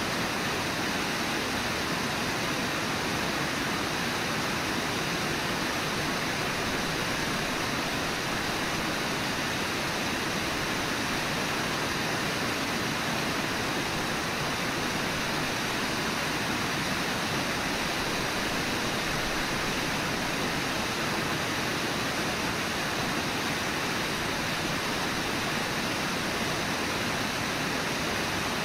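Steady rush of the Brooks River's flowing water, an even, unbroken noise with no distinct splashes or calls standing out.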